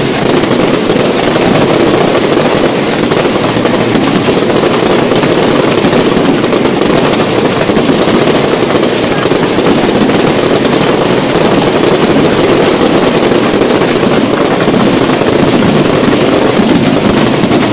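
Aerial fireworks barrage at very close range: a loud, continuous stream of rapid, overlapping bangs and crackle with no break.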